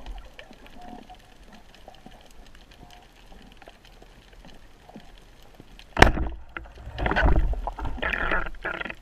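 Underwater, a speargun fires about six seconds in with one sharp crack, followed by loud scraping and knocking as the diver reaches for the shot shaft among the rocks. Before the shot there is only faint underwater crackling.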